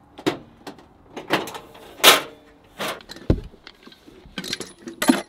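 Handling noise at a pickup truck: a string of short knocks, clunks and rustles as things are moved about and the cab door is worked, with a dull low thump a little past three seconds in and a sharp clatter near the end.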